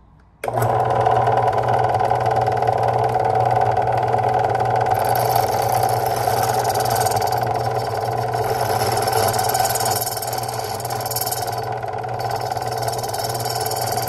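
Key-cutting machine switching on about half a second in and running with a steady electric-motor hum. From about five seconds in, a high grinding hiss joins it as the cutter wheel cuts into the bit of a barrel key. The hiss stops briefly near the end and then returns.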